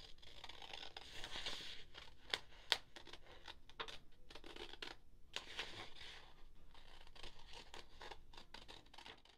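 Scissors cutting through a sheet of printer paper: a run of snipping and paper rustle, with a few sharper clicks as the blades close.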